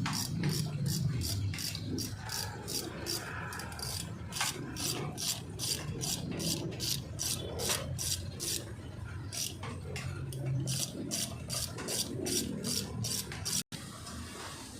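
A hand tool worked on an engine in quick, regular rasping strokes, about three or four a second, with a short pause partway through.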